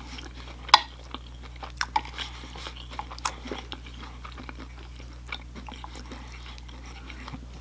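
Close-miked chewing and biting of food, with irregular wet mouth clicks and a few sharper crunches, over a steady low electrical hum.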